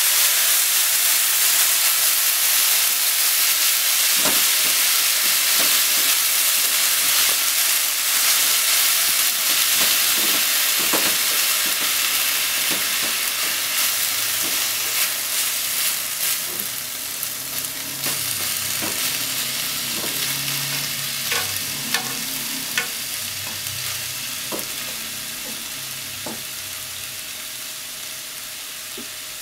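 Sliced pork and green onion sizzling in a frying pan as they are stir-fried with chopsticks. The sizzle slowly dies down, and light clicks of the chopsticks against the pan sound through it, more often in the second half.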